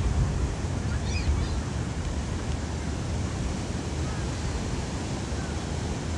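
Surf washing onto a sandy beach, a steady hiss of breaking waves, with wind rumbling on the microphone.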